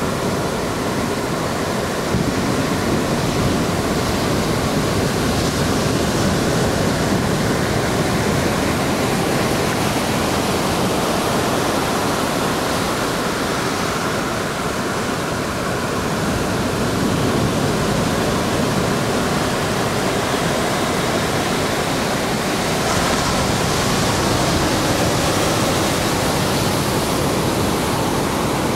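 Ocean surf breaking and washing up over a flat sandy beach: a steady rushing that swells and eases slowly as the waves come in.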